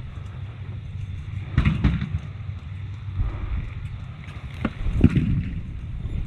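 Low rumble of wind noise on the microphone, with a few scattered knocks and clicks about one and a half seconds in and again around five seconds in.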